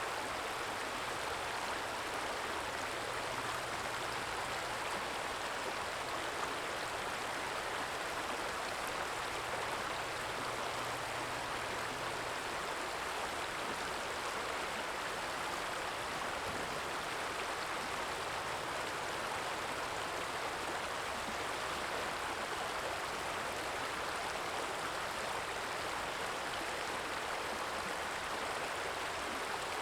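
Small stream flowing steadily, an even rush and trickle of water.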